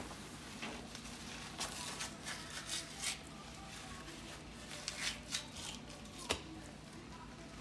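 Paper towel rustling and wet handling of a rack of raw pork ribs as the thin membrane is gripped and peeled off, in scattered short rustles and ticks with one sharper tap about six seconds in, over a low steady hum.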